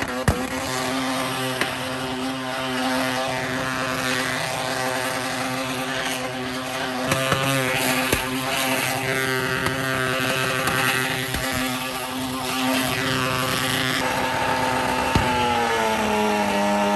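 Engine of a Mystery Machine-style van held at high revs during a tyre-smoking burnout, a steady drone that shifts pitch about fourteen seconds in and falls away near the end.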